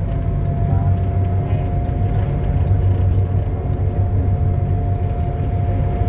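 Mitsubishi Crystal Mover C810 rubber-tyred LRT car running between stations, heard from inside the car: a loud, steady low rumble with a steady motor whine held at one pitch.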